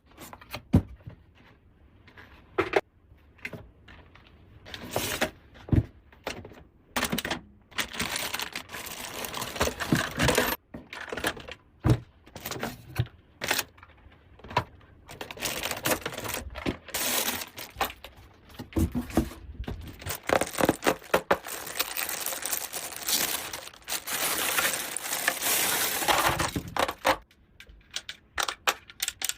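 Hard plastic toy pieces clicking and clattering as they are handled and unpacked, with longer stretches of plastic packaging rustling and crinkling through the middle and later part.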